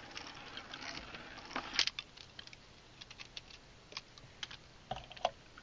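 Beyblade spinning tops in a plastic stadium: a faint spinning whir, then scattered light clicks and taps as they strike each other and the stadium, with a few sharper knocks.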